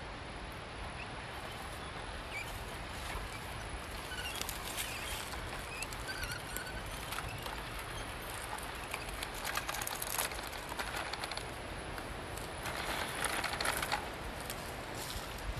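Small-scale RC off-road trucks crawling over rough ground: a steady outdoor hiss with scattered crackles and clicks of tyres and loose stones, loudest in clusters about ten and thirteen seconds in.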